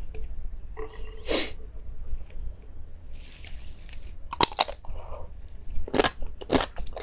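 Close-miked biting and chewing of crunchy food, with a run of sharp, separate crunches in the second half. A short pitched sound comes about a second in.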